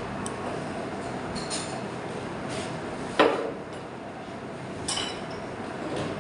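Cutlery and dishes clinking while eating: light taps of a fork and spoon on the plate, a loud knock of dishware about three seconds in, and a ringing clink near five seconds, over a steady room hum.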